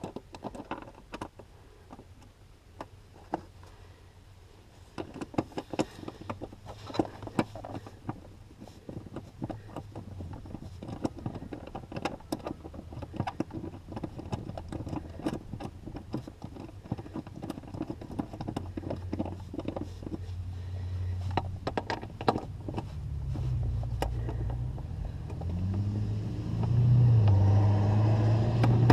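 Intermittent clicks and knocks of metal seat brackets and bolts being handled during a seat-riser install. Over them a motor vehicle's engine hums low and grows steadily louder over the last several seconds.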